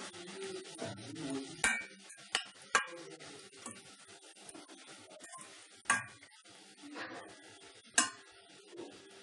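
Steel spoon stirring chopped vegetables in a stainless steel pan, with soft scraping and about five sharp metal clinks with short ringing as the spoon strikes the pan's side.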